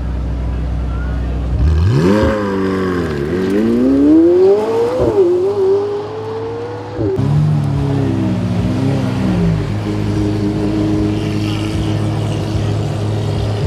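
A supercar engine accelerating hard. After a low steady drone, the pitch climbs sharply about two seconds in, drops at a gear change, climbs again and holds, then falls away about seven seconds in. A steadier engine note runs after that.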